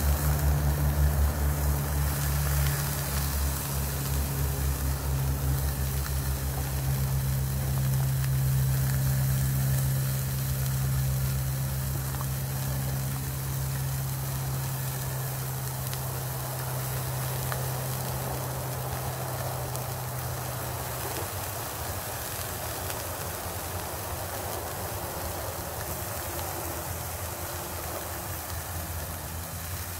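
Hamburger patty sizzling in a frying pan over a small wood-burning stove. A low, steady engine-like hum sits under it and fades out about two-thirds of the way through.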